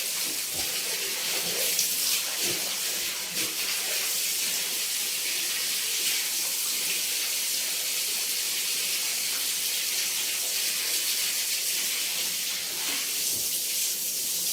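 Steady hiss of running or spraying water.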